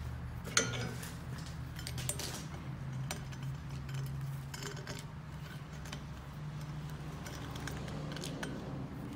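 Hand swivel-blade deburring tool scraping the edge of a drilled hole in a steel bar, giving scattered light metallic scrapes and clinks. A steady low hum runs underneath.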